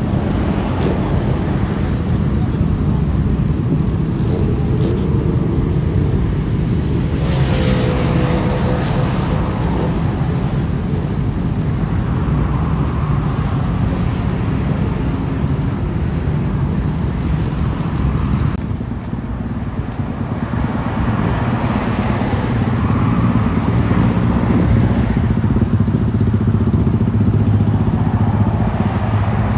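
BMW inline-four superbike engines with Akrapovič exhausts running close by with a steady low engine note, one passing with a sweeping change in pitch about seven seconds in. The sound dips briefly around nineteen seconds, then grows louder again.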